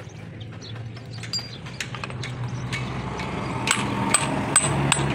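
Hand hammer striking the steel carrier housing of a truck differential: four sharp, ringing metal blows about half a second apart near the end, after a few lighter clinks of parts being handled.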